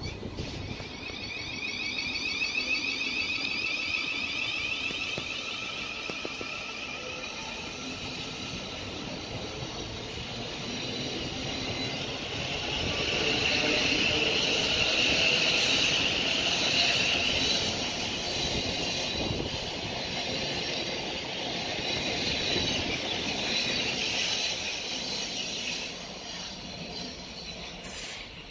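A South Western Railway Class 450 Desiro electric train pulling out, its traction motors giving a rising, stepped whine as it gathers speed. Then a steady wheel-on-rail rumble and hiss as the coaches run past, loudest in the middle, easing off near the end.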